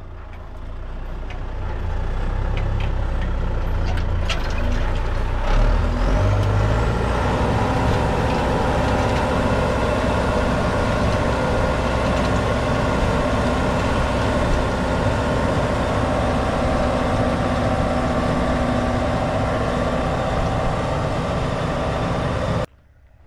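John Deere 6403 tractor's diesel engine running steadily under load as it pulls a row-crop cultivator through a bean field. The sound builds up over the first two seconds and cuts off abruptly near the end.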